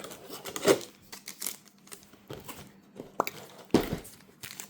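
Cardboard and card packaging being torn open and crinkled by hand: irregular rips and crackles, with sharper loud ones about a second in and again near the end.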